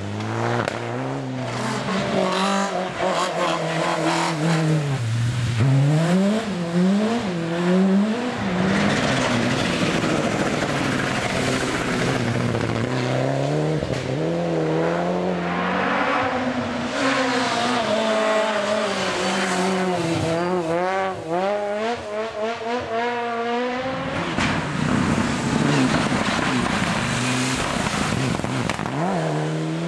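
Rally cars, among them turbocharged four-cylinder Mitsubishi Lancer Evolutions, taking a bend one after another. Each engine revs up and down in repeated sweeps through gear changes as the car brakes, turns and accelerates away.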